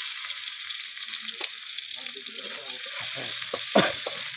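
Sliced onions sizzling in hot oil in an aluminium kadhai. A steel spatula scrapes and knocks against the pan a few times in the last second or so, the loudest knock just before the end.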